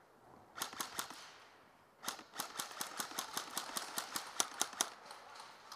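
Airsoft guns firing: three quick sharp shots just after half a second in, then a steady string of shots at about five a second for nearly three seconds.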